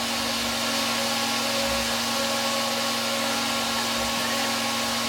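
A steady mechanical drone from a running machine, with a constant whine that does not change.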